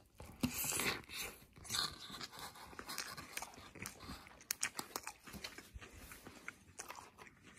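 A person chewing a mouthful of bacon quarter pounder with cheese, with irregular crunches from the lettuce and bacon, loudest in the first second or so.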